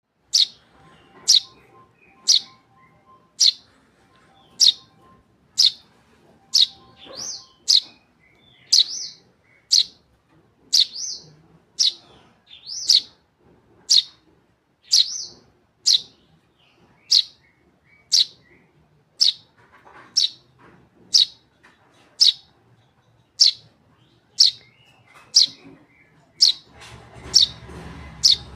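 Eurasian tree sparrow chick chirping over and over: short, sharp, downward-sliding calls at a steady pace of about one a second. A low background noise rises near the end.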